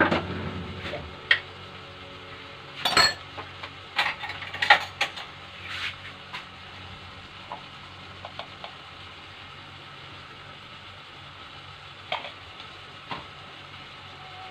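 Scattered light clinks and knocks of a spoon and spice containers against a cooking pot as spice powders are added, most of them in the first few seconds and two more near the end, over a faint steady hum.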